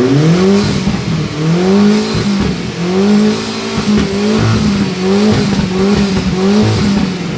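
2002 Audi A4's 1.8-litre turbocharged four-cylinder engine revved repeatedly, about six blips that each rise and fall in pitch, on a freshly installed used turbo that is building boost.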